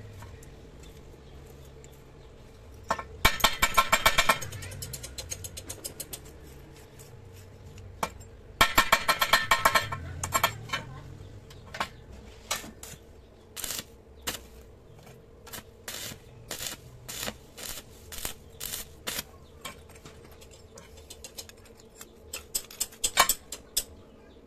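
Two long runs of rapid clicking, then scattered single clicks and taps, with another quick run near the end, over a faint steady hum.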